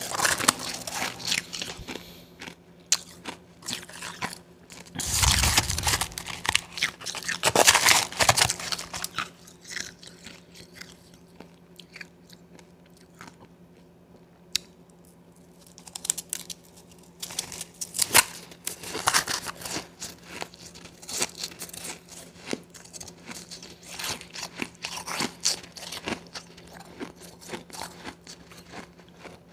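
Blended Wawa ice being bitten and chewed close to the microphone: dense runs of crisp crunches, with a quieter stretch in the middle before the crunching picks up again.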